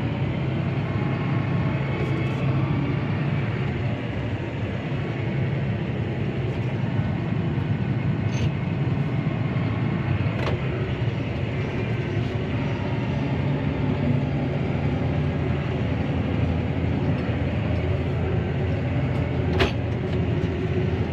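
Claas Arion 650 tractor's six-cylinder diesel engine running steadily, heard from inside the cab, with a few sharp clicks, the loudest near the end.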